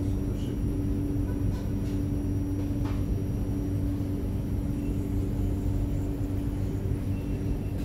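Steady low hum of a tram's onboard equipment while the tram stands at a platform, heard from inside the car. A couple of faint knocks come through about a second and a half and three seconds in.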